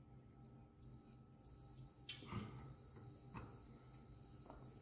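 Insulation resistance tester sounding a steady high-pitched beep while it applies about 500 V DC test voltage to the motor windings. The tone starts about a second in, breaks briefly, then holds. A few faint clicks come from handling the test probes.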